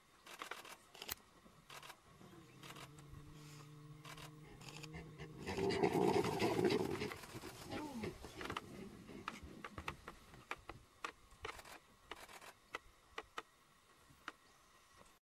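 An animal growling low and steady, breaking into a louder, harsher outburst of calls about six seconds in that dies away with a few falling cries. Faint sharp clicks are scattered throughout.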